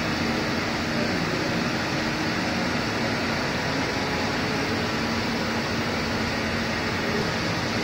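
Roll-to-roll film coating machine running: a steady machine hum with fan-like air noise and a faint low drone.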